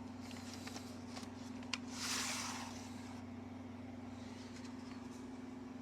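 Steady low electrical hum with a few faint clicks and a brief burst of hiss about two seconds in.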